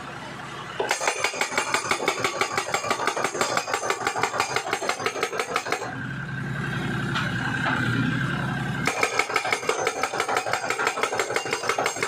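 Tractor-mounted hydraulic hammer driving a steel crash-barrier post into the ground with rapid, even blows, about five a second. The hammering stops for about three seconds near the middle, leaving the tractor engine running steadily, then starts again.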